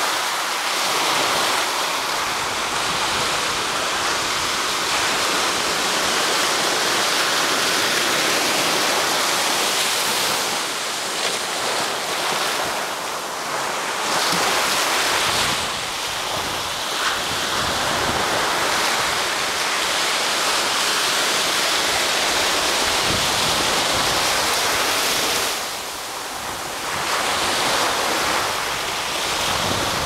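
Small Pacific waves breaking close in and washing up and back over a sandy beach: a steady rush of surf that swells and eases, dropping briefly about halfway through and again a few seconds before the end.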